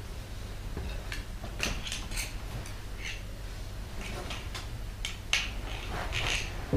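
A table knife scraping spread out of a plastic tub and across a crusty bread roll: a run of short, irregular scrapes and light clicks.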